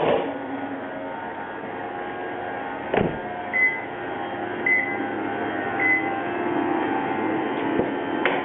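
Toyota Prius's electrically driven air-conditioning compressor running with a steady hum and whine. A sharp click comes about three seconds in, followed by three short high beeps about a second apart, and another click near the end.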